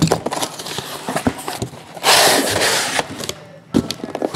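A taped cardboard shipping case being opened by hand: small clicks and knocks of handling, a loud ripping of packing tape and cardboard about two seconds in that lasts about a second, then a sharp knock as the flaps are pulled open.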